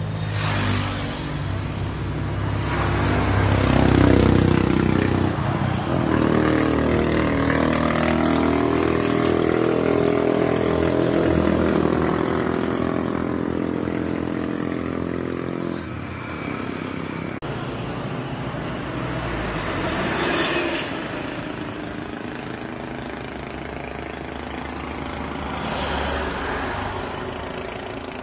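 Isuzu 4BC2 3.3-litre four-cylinder turbodiesel running and being revved: the revs rise a couple of seconds in and stay up with the pitch wavering until about halfway, then drop back, followed by two shorter blips of throttle.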